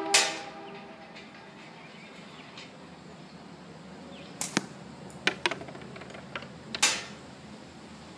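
7/16-inch steel slingshot balls striking a wooden catch box hung with a cloth backstop. There are three sharp hits, just after the start, about four and a half seconds in and near seven seconds, with lighter clicks and taps in between.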